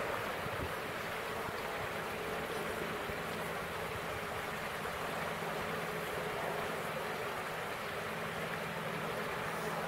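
Steady rush of a fast-flowing river, with a faint steady low hum underneath.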